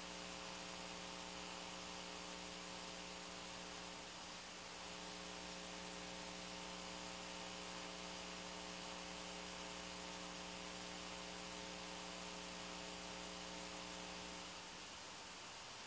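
Steady electrical mains hum over a faint hiss, which stops near the end.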